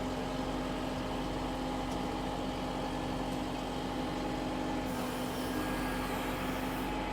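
Engine of the tow vehicle running steadily at low revs in granny gear, with an even, unchanging hum.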